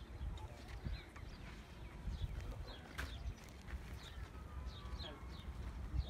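Birds chirping in short repeated calls, over the soft, uneven thuds of a bull's hooves on a dirt yard and a faint low rumble, with one sharp click about three seconds in.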